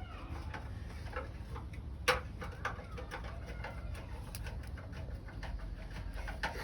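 Birds cooing in repeated calls over a steady low hum, with one sharp click about two seconds in.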